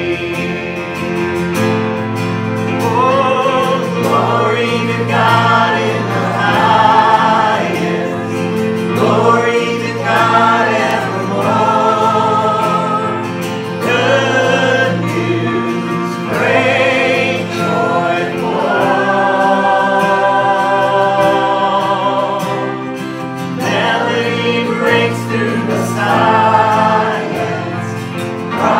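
A Christmas worship song: a man singing, some notes held long with vibrato, to acoustic guitar and keyboard accompaniment.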